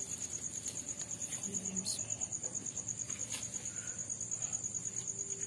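A cricket trilling steadily in a high, rapidly pulsing tone, with a few faint clicks.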